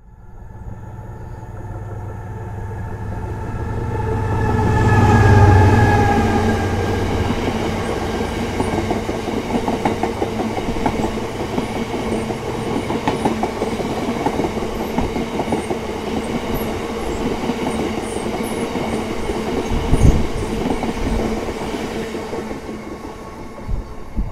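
A Class 70 diesel locomotive passes, its engine loudest about five seconds in, with its tones falling in pitch as it goes by. A long rake of empty bitumen tank wagons follows, rolling by with a steady clickety-clack of wheels over the rail joints. There is one heavy thump about twenty seconds in, and the sound fades as the train draws away.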